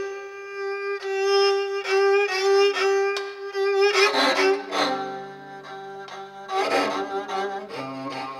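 Instrumental music: a bowed string instrument holds one long note over plucked string notes, and lower parts join about halfway through.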